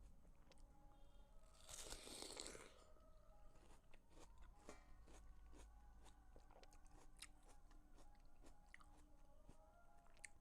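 Faint, crisp crunch of a bite into watermelon about two seconds in, followed by chewing with many small clicks.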